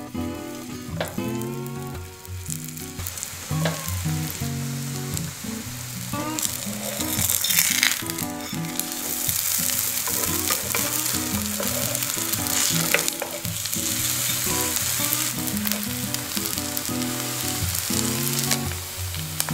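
Hash brown patties sizzling and frying in hot oil in a non-stick frying pan. The sizzle grows fuller partway through, with a few light clicks of a metal spatula against the pan, over soft background guitar music.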